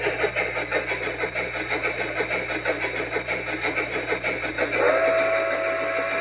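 Shay geared steam locomotive sound played through a model train sound module's speaker: rapid, even chuffing. About five seconds in, a steam whistle sounds and holds.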